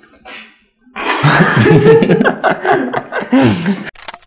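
People laughing loudly for about three seconds, starting about a second in and cutting off just before the end.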